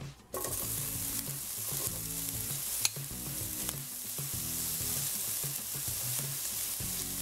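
Diced bacon hitting hot olive oil in a pot, sizzling steadily as it starts to fry. The sizzle starts suddenly just after the start, and there is a single sharp tap about three seconds in.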